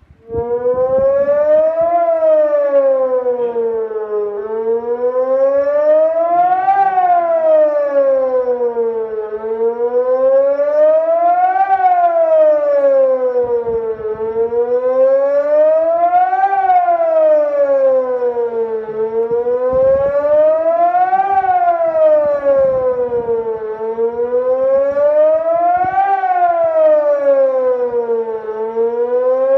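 Electronic civil-defence siren sounding the German 'Warnung der Bevölkerung' (public warning) signal: a loud tone that rises and falls evenly, one rise and fall about every five seconds. It starts about half a second in.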